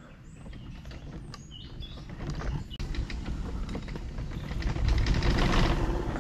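Powered wheelchair rolling along a concrete path, its wheels and frame rattling and creaking with many small clicks over a low rolling rumble that grows louder from about three seconds in.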